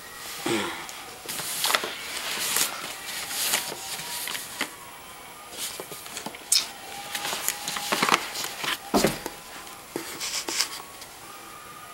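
A cardboard camcorder box being picked up, turned over and handled: irregular scrapes, taps and rustling of cardboard, with clothing rustling as the person shifts on the carpet.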